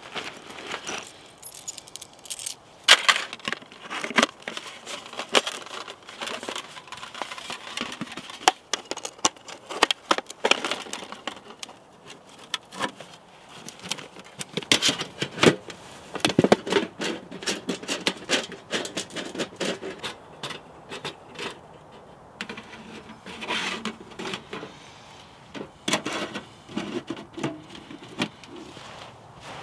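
Camping gear being handled while a hot tent and its small wood stove are set up: many irregular sharp clinks, knocks and rattles.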